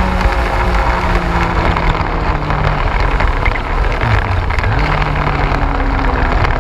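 Yamaha YZF-R1's inline-four engine running at moderate, fairly steady revs as the bike is ridden. The revs dip about four seconds in and pick up again a second later, under a steady low rush of wind noise.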